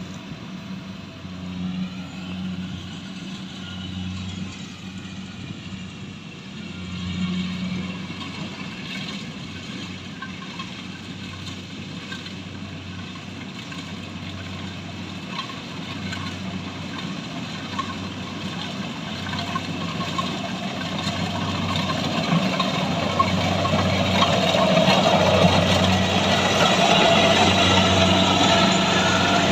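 Rice harvesting machine's engine and working parts running: a steady engine hum under a higher mechanical whine, with the pitch shifting a little early on and the sound growing louder over the last third.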